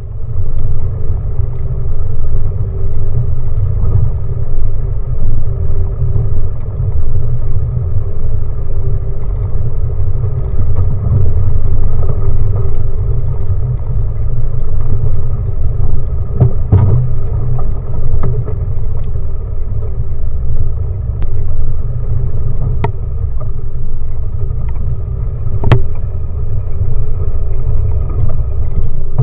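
4x4 vehicle driving off-road: a loud, steady low rumble with a constant tone running through it, and a few sharp knocks.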